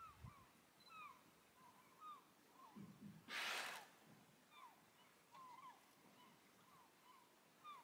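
Faint calls of gulls: many short, falling cries in quick succession, with a brief rushing noise about three seconds in.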